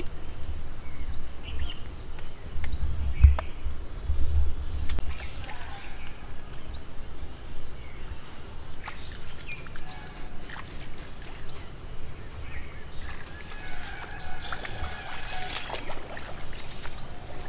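Rural outdoor ambience: a steady high-pitched insect drone with a bird giving short rising chirps about once a second. A low rumble sits under it for the first five seconds.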